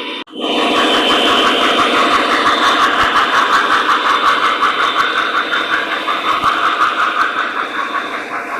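A model train locomotive's onboard sound system, heard through its small speaker, playing a diesel engine running steadily with a fast, even pulse. It starts after a brief cut a quarter second in and eases off slightly near the end.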